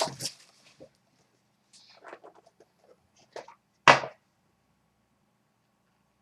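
A few short clicks and rustles of a trading-card box and its packaging being handled and opened, the loudest a sharp crackle about four seconds in.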